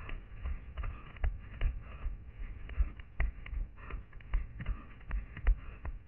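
Running footsteps on a dry pine-forest floor, picked up by a head-mounted camera: a steady thud and crunch of grass, needles and twigs about two and a half times a second.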